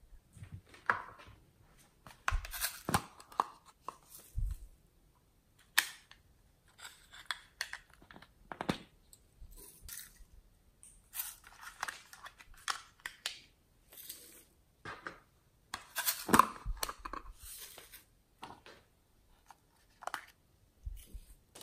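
Hands handling small plastic containers and toys close to the microphone: irregular clicks, taps and crinkly rustles of plastic as lids and cases are opened and moved.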